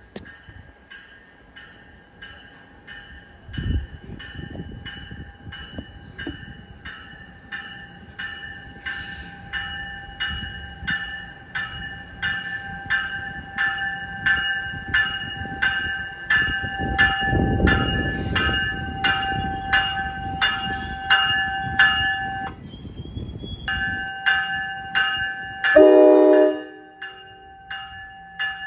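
An NJ Transit Multilevel commuter train's bell ringing steadily about twice a second as the train approaches and passes, with the rumble of its wheels swelling past the middle. One short horn blast near the end is the loudest sound.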